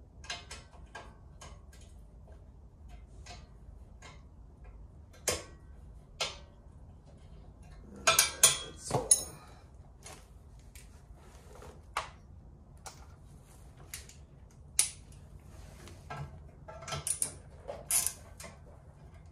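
Hand ratchet and sockets working bolts out of a Wheel Horse tractor frame: scattered metal clicks and clinks, with a cluster of louder clanks about eight seconds in and another near the end.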